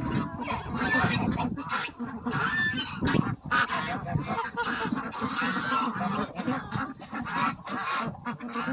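Continuous clamour of a mixed farmyard flock at feeding time: many domestic ducks quacking and chattering as they feed, with geese honking among them.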